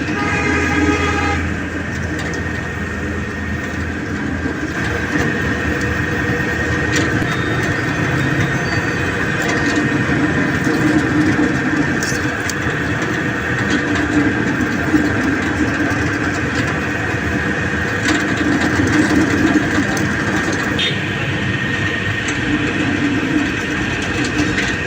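Steady, loud mechanical noise with a few sharp clicks and knocks.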